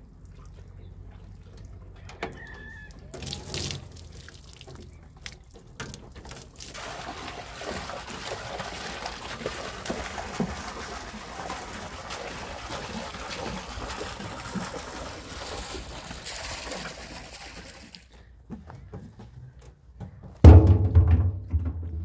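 Water pouring steadily for about ten seconds, then stopping abruptly. A loud, low thump comes near the end.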